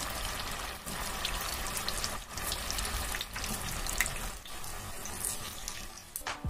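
Balls of bread pakoda batter deep-frying in hot oil in a kadai: a steady sizzle and bubbling, dotted with many small crackles and pops.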